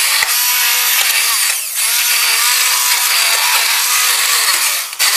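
Electric stick (immersion) blender running, puréeing cooked pumpkin chunks in a stainless steel pot. Its motor whine wavers up and down in pitch as the load changes, with a brief dip about one and a half seconds in.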